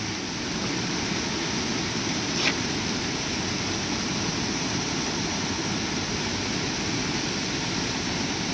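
Floodwater from a creek over its banks rushing steadily, a dense, low-heavy rush of water, with a brief click about two and a half seconds in.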